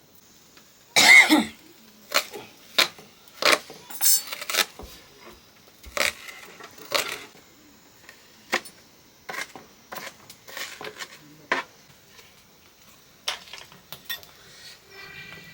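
Pots and utensils being handled: an irregular string of clinks and knocks, loudest about a second in.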